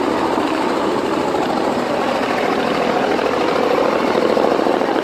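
A helicopter's rotors and engine running, a loud, steady rush with a fast chop.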